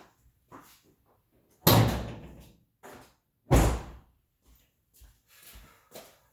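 A car hood slammed shut twice, about two seconds apart, each a heavy thud with a short ring, with small clicks and taps between.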